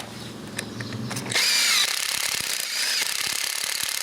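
Cordless drill spinning a screwdriver bit ground to a chisel point. The motor hums at first, and about a second and a half in the bit bites into wood with a loud, scraping, squealing cut.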